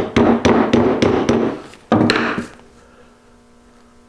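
Mallet tapping a greased polyurethane bushing half into the steel eye of a rear lower control arm: a quick run of taps, about four a second, then one last tap about two seconds in.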